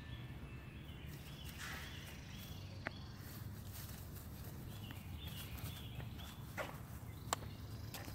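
Footsteps of a person and a small dog on a leash moving over grass and fallen leaves, with a few sharp light clicks, the loudest about seven seconds in, over a low steady rumble.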